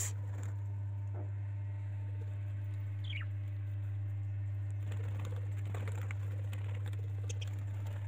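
Pet budgerigars chirping softly now and then, one a quick falling chirp about three seconds in, with scattered faint clicks in the second half, over a steady low hum.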